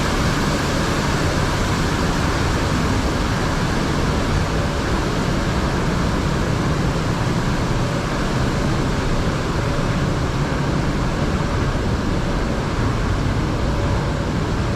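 Steady, loud rush of falling and spraying water.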